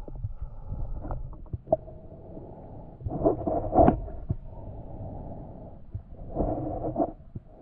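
Muffled underwater sound through a waterproof camera housing: a low rumble with a few small clicks and two louder bursts, one about three seconds in and one about six and a half seconds in.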